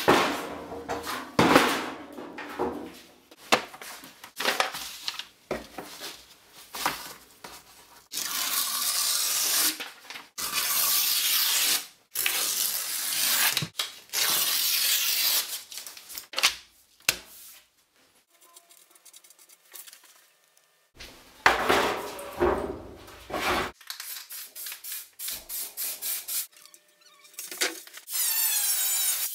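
Knocks, clatter and scraping as a sheet of scrap metal and hand tools are handled and marked out on a workbench, in separate bursts with quiet gaps between them. Near the end an angle grinder switches on and spins up with a rising whine.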